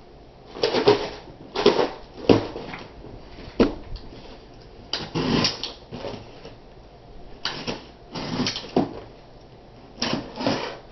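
A cardboard shipping box being handled and set down on a desk, then a box cutter slitting its packing tape. The sound is a series of irregular short rustles and knocks.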